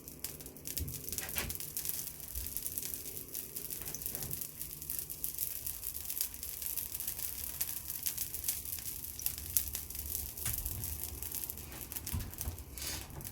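Fan heater with its thermal fuses bypassed, overheating at full 2 kW: a continuous dense crackling and sizzling over a low steady hum.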